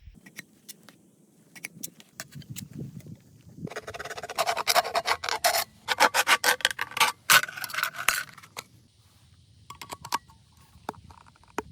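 A fast, dense run of scraping and rasping strokes lasting about four seconds in the middle, with scattered sharp clicks and knocks before and after.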